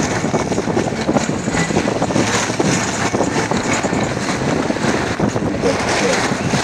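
Lada Niva running as it drives through muddy puddles, with mud and water splashing and wind noise on the microphone.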